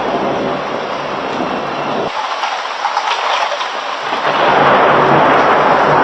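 Steady hiss of heavy rain in a thunderstorm, with low thunder rumble. The low rumble drops away abruptly about two seconds in, and the sound comes back louder from about four seconds in.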